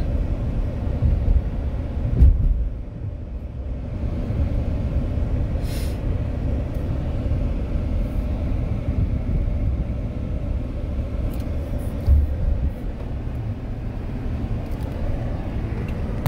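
Steady low rumble of a car driving, heard from inside the car, with two brief low thumps, one about two seconds in and one later on.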